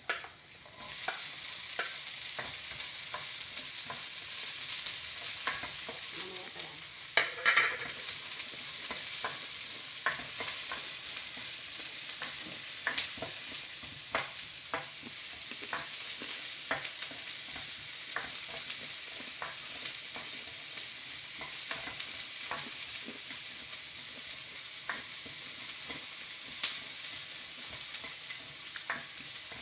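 Chopped onion hits hot oil and garlic in a wok and fries with a steady sizzle, starting about a second in. A spatula stirs the pan, and it clicks and scrapes against the wok every so often.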